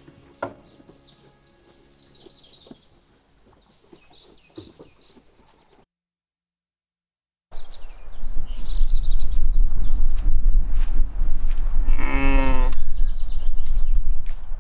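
Faint birdsong, then heavy wind rumble on the microphone with birds chirping. A sheep bleats once, a single wavering call, near the end.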